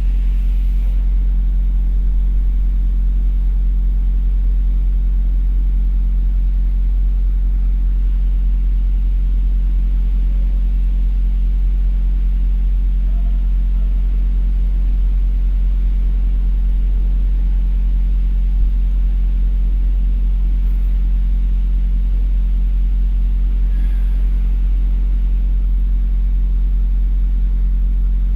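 Cummins ISX diesel engine of a semi truck idling, a steady low rumble that does not change.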